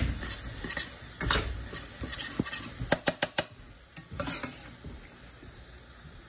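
A utensil stirring and scraping scrambled eggs in a metal skillet, with some sizzling. About three seconds in comes a quick run of four sharp clicks, then quieter scrapes toward the end.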